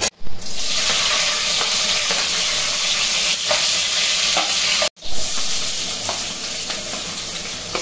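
Green chillies sizzling and spitting in hot oil in an aluminium pot, stirred with a steel spoon that clicks lightly against the pot. About five seconds in the sound drops out for an instant, then the frying carries on a little softer as chopped onions go in.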